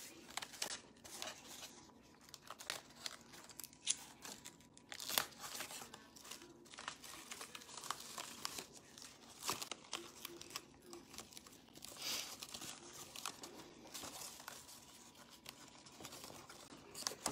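Cardboard triangles being handled and taped together: crinkling and rustling of cardboard, with strips of tape pulled and torn, in irregular short clicks and scrapes.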